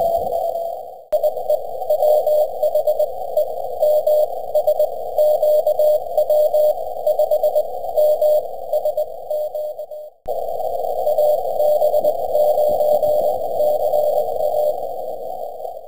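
Morse code (CW) signals heard through a ham radio receiver: a keyed tone of dots and dashes inside a narrow band of receiver hiss. The audio drops out briefly about a second in and again about ten seconds in, where one received signal gives way to another.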